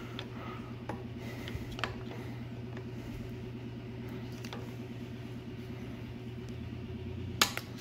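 A steady low machine hum with a fixed pitch runs under a few faint clicks and scrapes as a brake pad is worked out of a Tesla Model S rear Brembo caliper. A sharper click comes near the end.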